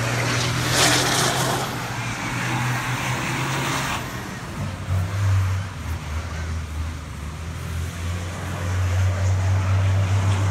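Racing prime-mover truck's engine running with a steady low note that drops to a deeper note about five seconds in. A rushing hiss sits over it for the first four seconds.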